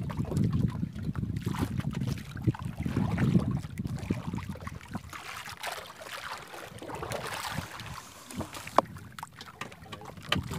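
Wooden paddle stroking through the sea beside a small outrigger boat, water splashing and dripping off the blade, with wind rumble on the microphone in the first few seconds. A single sharp knock comes near the end.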